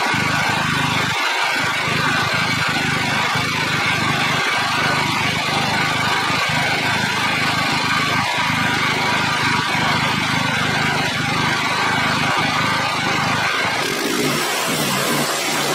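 A small gasoline engine running steadily, its sound changing about fourteen seconds in.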